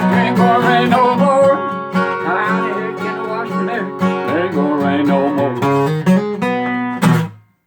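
Strummed acoustic guitar playing the close of a country-style folk song, with a singing voice over it. It ends on a final strum about seven seconds in and dies away quickly.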